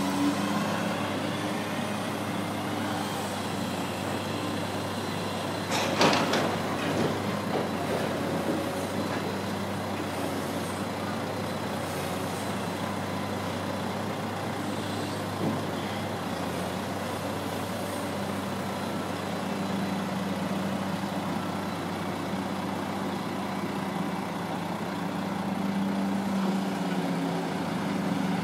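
Diesel engine of a Liebherr log-handling machine running steadily, getting louder near the end. About six seconds in there is one loud knock that rings on, as timber strikes the ship's steel hold.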